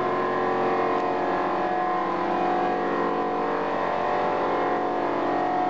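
Danobat PGA 4 CNC punch press running, a steady machine hum with several held tones and no punch strokes heard.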